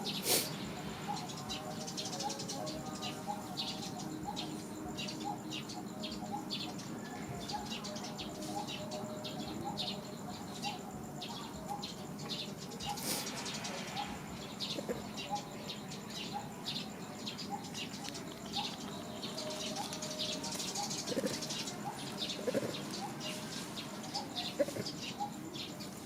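Many birds chirping and calling, short calls one after another throughout, with a few brief knocks in between.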